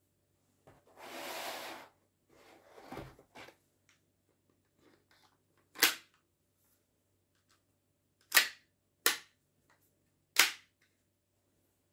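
Action Army AAP-01 airsoft gas pistol being handled: about a second of rustling, a few faint ticks, then four sharp clicks from the pistol's action being worked, spaced one to three seconds apart.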